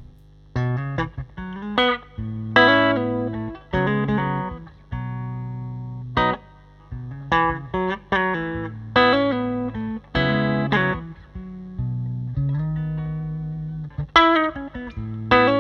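Electric guitar with humbucker pickups played through a Bad Cat Classic Pro 20 Reverb, a 6V6 valve combo amp, on a bright setting: a phrase of picked single notes and chords, some left to ring for a second or two.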